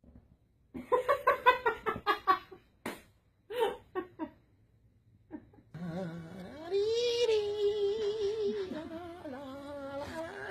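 A high-pitched voice laughing in a quick run of short bursts, then a few single bursts. From about six seconds in comes a long, wavering hummed note.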